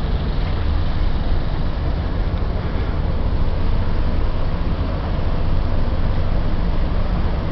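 Steady low diesel drone of the Victory pusher tug's engines as it pushes the barge Maumee upriver.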